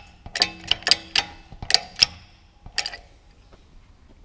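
Sharp metallic clicks and taps, about seven in the first three seconds, from a bottle-jack shop press as the hub is pressed into the front wheel bearing.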